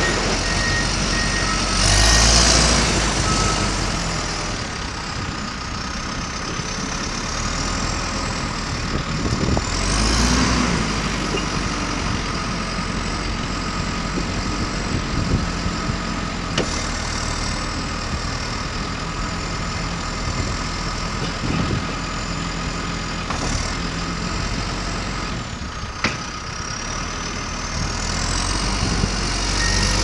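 John Deere 310SJ backhoe loader's diesel engine running as the machine drives and manoeuvres. It revs up and drops back with a rising and falling whine about two seconds in, again near ten seconds, and near the end. Its reversing alarm beeps at the start and again near the end.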